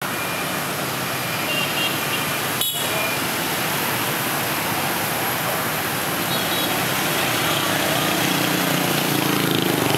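Steady street traffic of many motor scooters and motorbikes riding past, their small engines running. A few brief high beeps come about two to three seconds in, and a city bus's engine grows louder near the end as it draws close.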